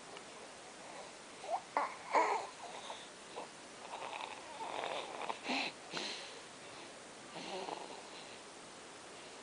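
One-month-old baby snoring: short noisy breaths in clusters about two, five and seven and a half seconds in, some with a little pitch to them, the loudest about two seconds in.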